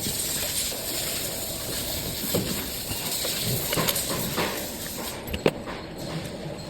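Steady workshop machinery noise with a few sharp knocks, during the installation of a hydraulic rotary motor.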